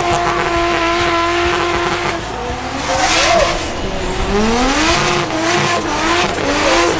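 Drift car engine held at high revs for about two seconds, then dropping and revving up again with wavering revs, over tyre noise.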